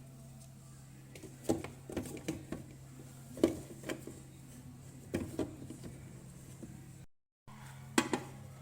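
Plastic food containers and jars being handled and set down: a scattering of light knocks and clacks over a steady low hum, with a brief cut to silence about seven seconds in.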